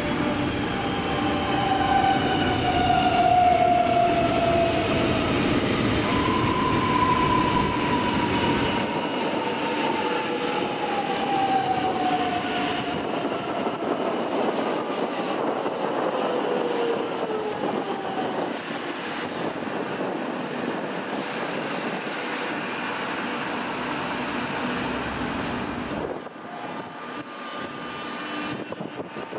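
X'trapolis electric suburban train pulling into a station platform and slowing to a stop, with several whining tones falling steadily in pitch over wheel-on-rail rumble. The sound drops away suddenly a few seconds before the end.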